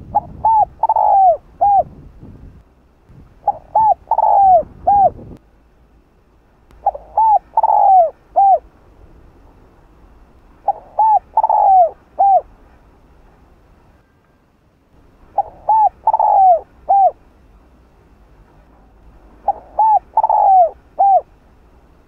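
Spotted dove cooing its song, a phrase of about four notes with the third drawn out and falling, repeated six times about every four seconds.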